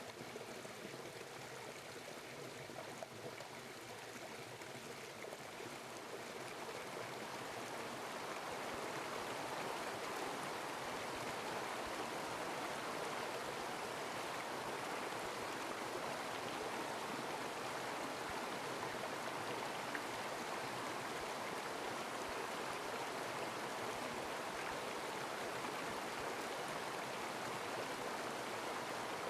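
Mountain stream running steadily, a constant rush of water that swells a little louder about seven seconds in.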